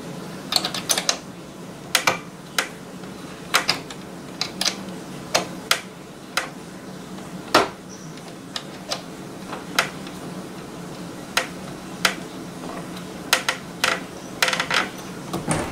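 Irregular clicks and taps, some single and some in quick clusters, from a bobbin being pushed and twisted onto the bobbin-winder spindle of a Singer Fashion Mate 360 sewing machine. The bobbin will not seat on the spindle.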